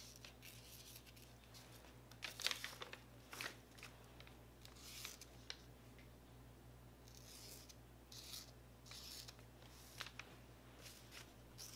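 Faint scratchy strokes of a metallic paint marker's tip drawing on a paper notepad: short scrapes about every second, over a low steady hum.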